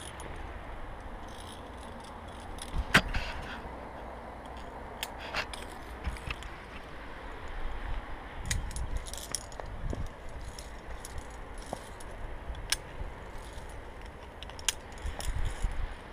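Via ferrata climbing gear clinking: metal carabiners and lanyard hardware jangling and knocking against the steel rungs and cable as the climber moves up, in scattered sharp clicks with one louder clank about three seconds in.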